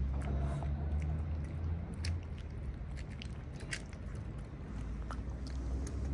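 A cat eating wet food out of a plastic tray close to the microphone: irregular wet chewing and smacking clicks, over a steady low rumble.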